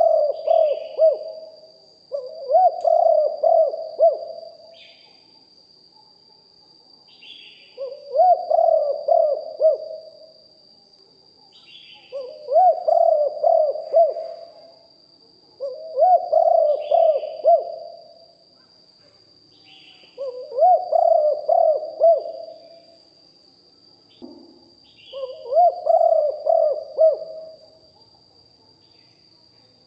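Spotted dove cooing its phrase over and over, about seven times, each phrase roughly two seconds long with a pause of two to three seconds between phrases.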